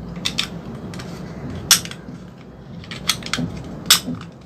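Sharp plastic clicks and taps, about six of them, loudest nearly two seconds in and near the end, as batteries are pressed into an infrared TV remote's battery compartment.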